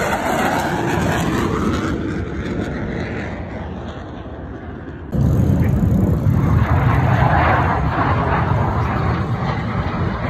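US Air Force Thunderbirds F-16 Fighting Falcon jets passing low, heard as loud jet-engine noise. The noise fades over the first few seconds, then comes back suddenly and louder about halfway through, with a heavy low rumble.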